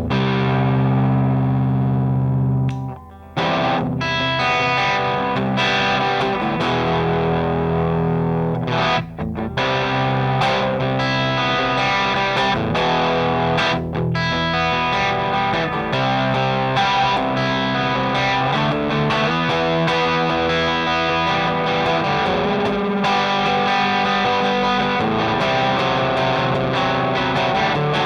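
Electric guitar played through a Rullywow Plexicruise distortion pedal, a Marshall-voiced clone of the Plexidrive. A held chord rings for nearly three seconds, then after a brief break the playing runs on as distorted chords and riffs.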